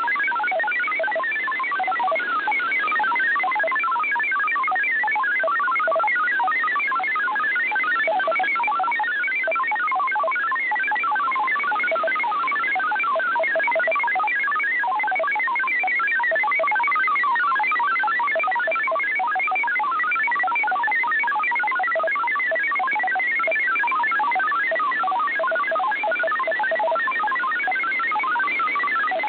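THOR25x4 digital text signal received by shortwave radio: a rapid, unbroken stream of short tones hopping up and down in pitch, over steady band hiss. The reception is marginal.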